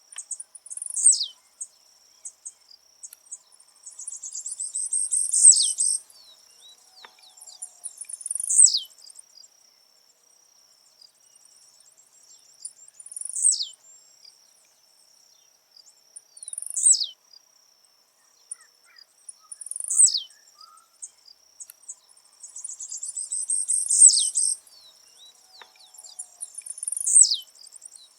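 Blue-black grassquit (tiziu) singing its short song over and over, about every three to four seconds: each a high note that drops steeply in pitch, some led by a buzzy rattle. A faint steady high insect trill runs underneath.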